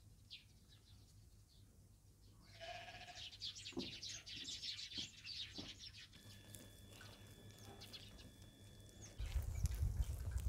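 Livestock bleating, a cluster of short calls a few seconds in. A steady high tone follows, and a loud low rumble starts near the end.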